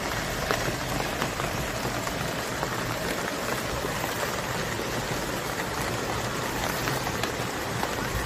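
Steady rain falling on lotus leaves and the pond, with many small drop ticks through it.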